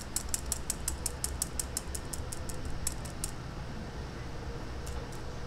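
Fine wire-mesh strainer being tapped by hand to sift milk powder, a quick even run of light ticks, about five or six a second, that stops a little over three seconds in.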